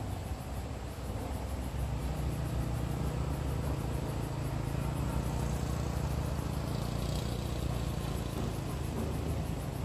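Distant motorbike engine running steadily as it rides past, a low even hum.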